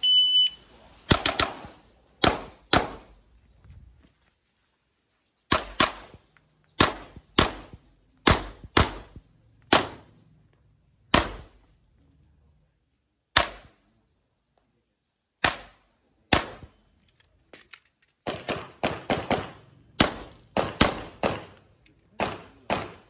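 A shot timer beeps briefly, then a pistol-caliber carbine fires a course of some twenty shots with a short ringing echo after each: singles and pairs with pauses between them, then faster strings near the end.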